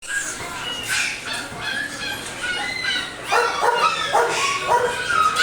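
High-pitched dog barking: a run of quick, short yaps, quieter and overlapping at first, then louder at about two a second from a little over three seconds in.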